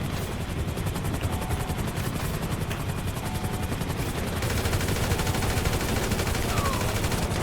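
Video-game automatic gunfire: a dense, rapid run of shots with a steady low rumble underneath.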